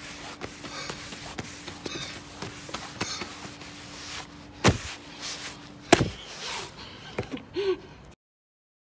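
Breathing in and out through a centre-mounted swimmer's snorkel tube, with thumps from arm strokes on a foam kickboard and turf. Two loud thumps come about five and six seconds in, and the sound cuts off sharply about eight seconds in.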